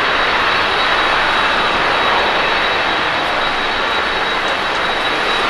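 Airbus A330-300 airliner's jet engines running as it rolls along a wet runway: a steady jet roar with a thin, high, even whine held on top.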